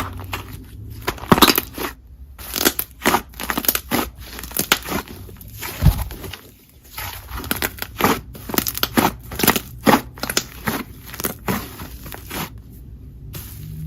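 Slime being squeezed, poked and pressed by hand, giving a dense run of irregular crackling pops and clicks.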